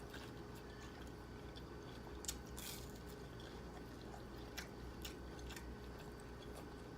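Faint eating sounds: quiet chewing with a few short, wet mouth clicks scattered through, over a steady low hum.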